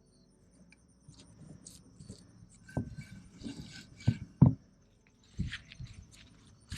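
Handling sounds of fresh herbs and berries being put into a container: soft rustles and a few light knocks, the loudest about three to four and a half seconds in. Insects chirp steadily and high in the background.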